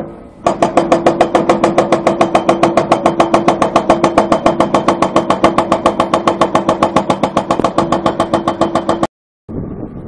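Excavator-mounted hydraulic breaker hammering rock, a fast steady train of about ten blows a second over the hum of the machine's engine. It starts about half a second in and cuts off suddenly near the end.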